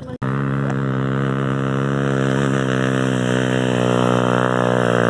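Vehicle engine running at a steady speed, a constant drone that holds one pitch throughout.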